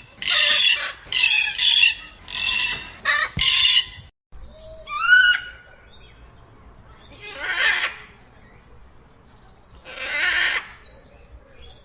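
Macaws squawking: a quick series of harsh screeches over the first four seconds, a short rising whistled call about five seconds in, then two single drawn-out screeches a few seconds apart.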